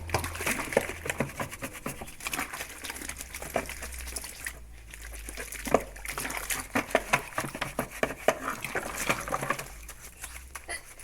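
Washing-machine part being scrubbed by hand with a sponge and water: irregular rubbing, splashing and light knocks.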